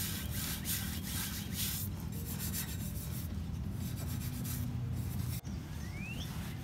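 A bristle brush scrubbing a wet, cleaner-soaked car exhaust tip in quick back-and-forth strokes. After a short break near the end, a cloth rubs over the tip.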